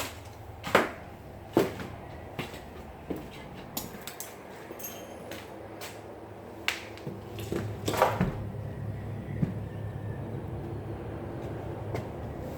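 Footsteps climbing stairs: a short knock about every three quarters of a second, with a few louder knocks later, over a steady low hum.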